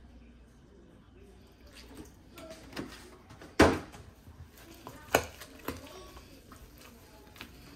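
A few sharp knocks and clatter. The loudest comes a little past halfway, a second strong one follows about a second and a half later, and several lighter taps come between and after.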